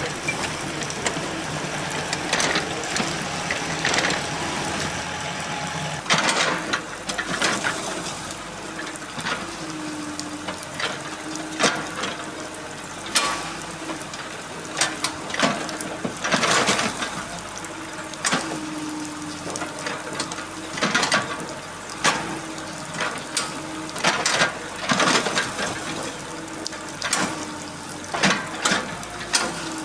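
Excavator working in standing water: repeated splashes and pouring water over the machine's steady hum, which wavers slightly in pitch.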